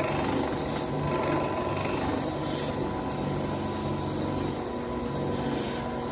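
Drill press running a 4-inch sanding ball against the inside of a dried gourd, the abrasive scrubbing the gourd's rough inner wall over the steady hum of the motor.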